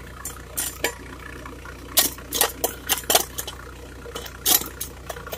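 Suzuki Carry engine idling with a steady low hum through its rebuilt exhaust, under about ten sharp, irregular clicks and knocks.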